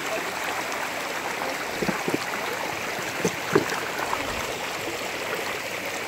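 Shallow creek running over rocks, a steady rushing hiss, with a few short knocks about two and three and a half seconds in.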